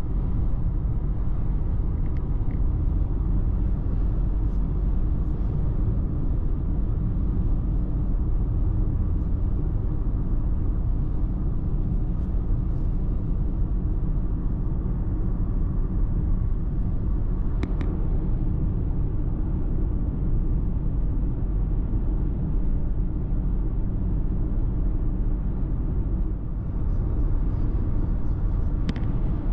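A car driving at a steady speed: continuous low engine and tyre rumble, with two brief ticks, one about eighteen seconds in and one near the end.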